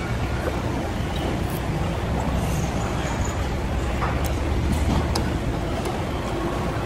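Steady low rumble of open food-court background noise, with a few faint light clicks of chopsticks and a spoon against a bowl.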